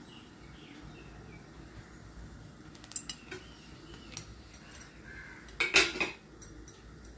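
Slotted metal spatula clinking against a non-stick kadhai with oil in it: a few light clinks, then a louder short clatter near the end.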